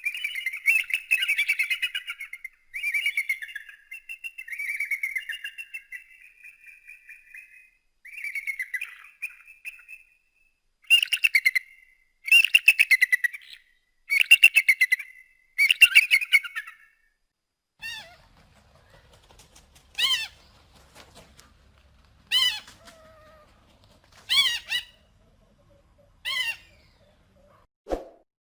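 Eagle calls: rapid, high chattering calls in a series of bursts for about the first seventeen seconds. After a short pause come single sharp call notes, one about every two seconds.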